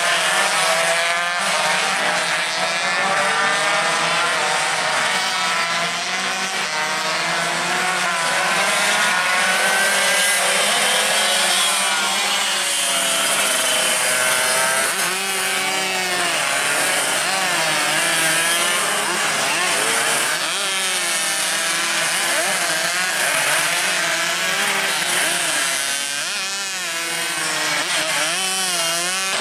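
Several tuned Yamaha RX-King two-stroke single-cylinder motorcycles racing at high revs, their buzzing engines overlapping, with the pitch rising and falling again and again as they accelerate and ease off.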